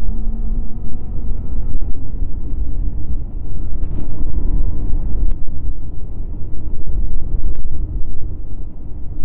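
Snowmobile running steadily at trail speed, its engine note under a heavy low rumble, with a few brief clicks.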